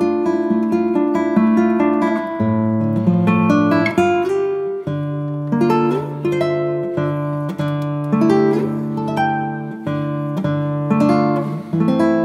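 Background instrumental music: quick plucked notes over held low bass notes.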